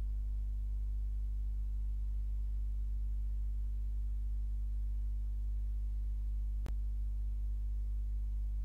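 Steady low electrical hum made of a deep tone and several higher steady tones above it. There is a single short click about two thirds of the way through.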